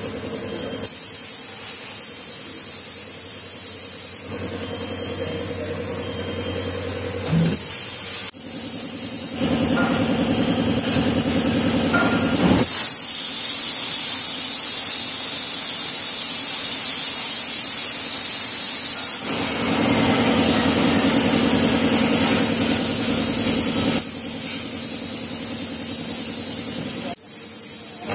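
Automatic multi-stage industrial parts-cleaning machine running: a steady loud hiss of spraying and blowing air over a machine hum. The sound changes abruptly every few seconds.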